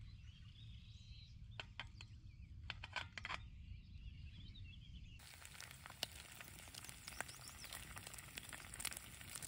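Sausage strips frying in a stainless steel pan on a small wood-burning gasification camp stove. A few faint crackles come first, then from about five seconds in a steady, faint sizzle.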